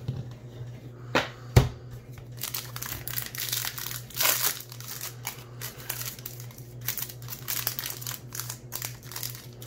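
Baseball card pack wrapper being crinkled and torn open in quick strokes, after a couple of sharp knocks about a second and a half in.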